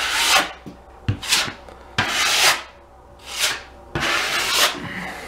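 Steel drywall taping knife scraping across the wall in about five swipes, spreading a top coat of joint compound over a patched hole.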